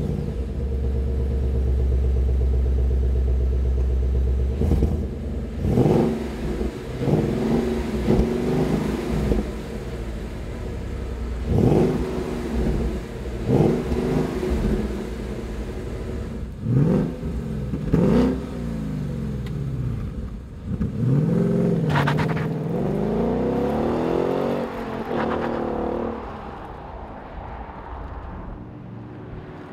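Factory exhaust of a 2015 Ford Mustang GT's 5.0 L Coyote V8 idling steadily, then revved in a string of short blips, each rising and falling in pitch, with one longer rev later on. Near the end the sound drops lower as the car drives off.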